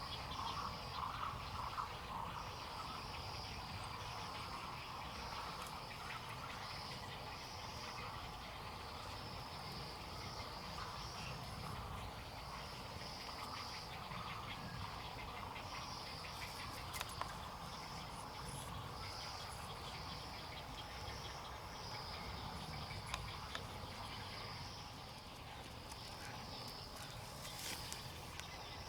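Steady insect chirring, pulsing slightly, with a few faint clicks now and then.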